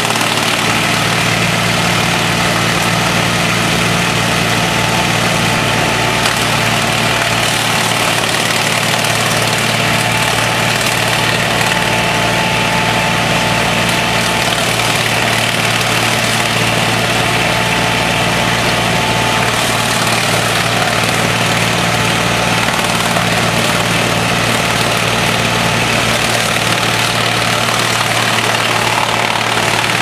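Diesel engine of a wood chipper running steadily at a constant speed.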